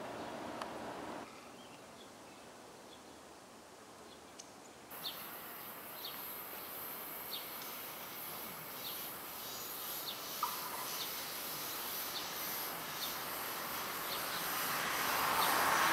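A Long Island Rail Road M7 electric train approaching. Its rumble swells steadily over the last few seconds, over an outdoor background of a high steady hiss with short repeated chirps.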